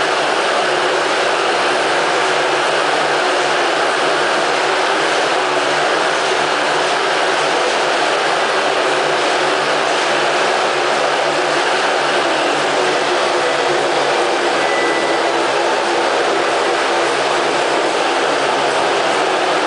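Several motocross motorcycles circling inside a steel mesh globe of death, their engines running together as one loud, steady engine noise.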